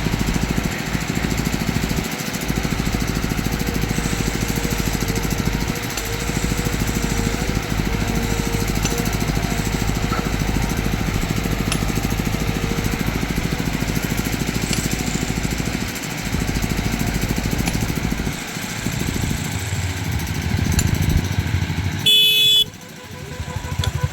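Heavy diesel engine running steadily with a low, rapid throb, and a short horn blast about 22 seconds in.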